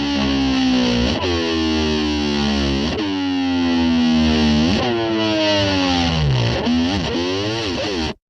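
Distorted electric slide guitar imitating a motor scooter revving, heard backwards: long falling glides in pitch that snap back up about every two seconds. It cuts off suddenly near the end.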